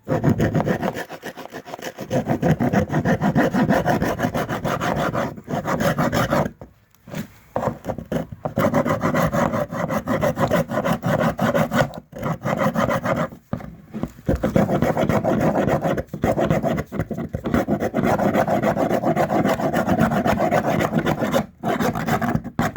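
A saw cutting in rapid, steady strokes, stopping briefly several times.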